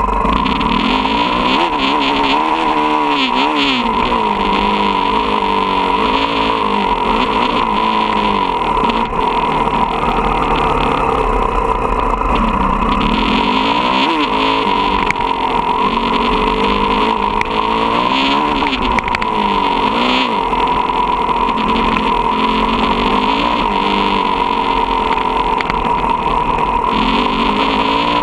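Motocross bike engine heard onboard while riding, its revs rising and falling over and over as the rider throttles and shifts through the course, over steady wind and road noise.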